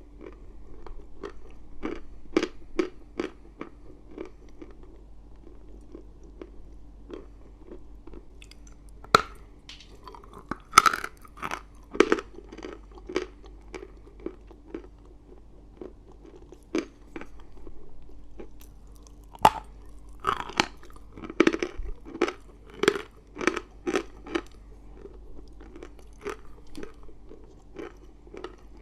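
Someone biting and chewing dry eating chalk: irregular sharp crunches, several a second, with the loudest bites in the middle stretch.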